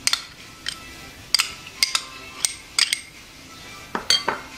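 Metal spoon clinking against a glass mixing bowl as honey mustard is spooned and knocked off onto shrimp: several sharp, ringing taps, irregularly spaced.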